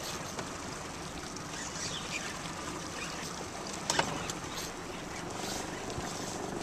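Steady wind and water noise on a fishing boat, with a single sharp knock about four seconds in.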